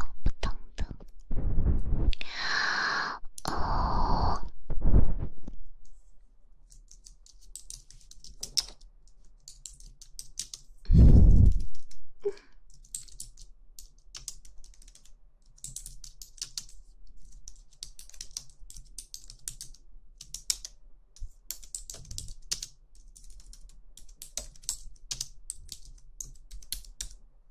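Close-miked ASMR sounds: a few breathy mouth bursts into the microphone at the start and one loud breathy puff about eleven seconds in, then a long stretch of faint, fine scattered clicks and crackles.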